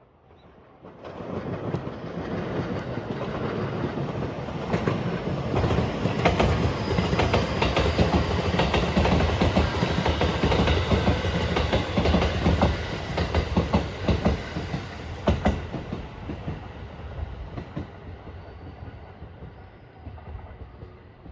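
Electric train passing close by, its wheels clicking over the rail joints. The sound builds about a second in, stays loud with a quick run of clicks for most of its length, then fades as the train moves away.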